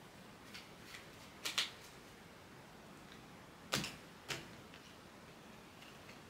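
Tarot cards being handled: a few sharp snaps and clicks as cards are drawn and laid on the table, with a close pair a second and a half in and the loudest two about half a second apart near the middle.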